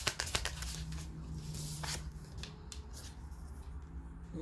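A tarot deck being shuffled by hand: a quick run of card flicks that dies away about half a second in, then quieter card handling with a single snap near two seconds.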